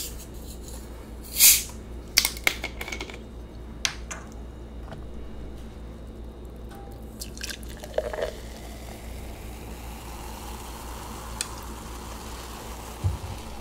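A plastic bottle of cola twisted open with a short, sharp hiss of escaping gas about a second and a half in, followed by a few clicks of the cap and bottle. The cola is then poured into a glass and fizzes softly as the foam rises.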